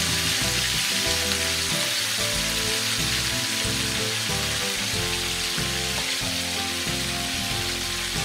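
Chicken pieces frying in hot oil in a pan, a steady, dense sizzle.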